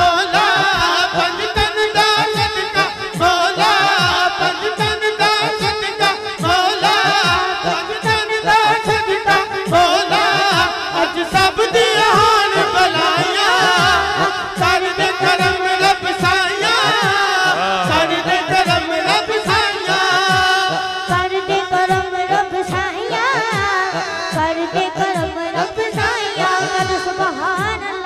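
A boy's voice singing a Punjabi devotional naat through a microphone and PA, over a steady drone and a low, regular beat.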